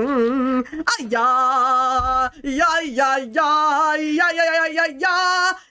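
A person singing wordless 'boing' and 'ya ya yaaa' syllables in drawn-out, wavering, yodel-like notes, in about six short phrases with brief breaks between them.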